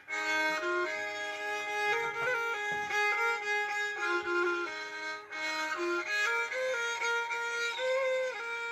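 Nepali sarangi, a bowed folk fiddle, playing a slow melody of long held notes that step from one pitch to the next.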